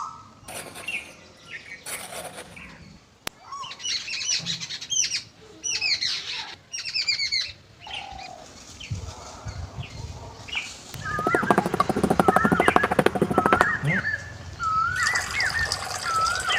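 Birds chirping and calling in quick, repeated sweeping notes. From about two-thirds through, a fast rattling buzz joins in with a repeated wavy whistled call.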